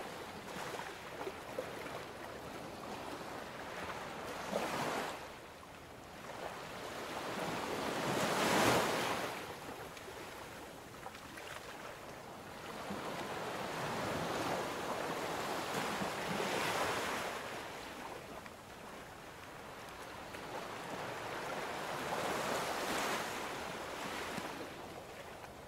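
Ocean waves washing in, a broad rushing noise that swells and fades every few seconds, the loudest swell about nine seconds in.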